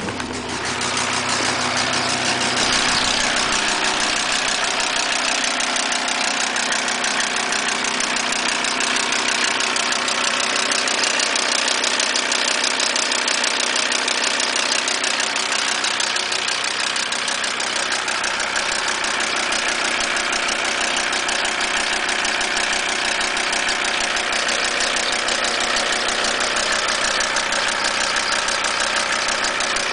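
Audi A6 2.5 TDI five-cylinder diesel engine running steadily with a fast, regular ticking over its clatter. The ticking comes from a sheared key on the crankshaft timing-belt sprocket, which lets the cam run 6–8 degrees advanced so the inlet valves touch the pistons.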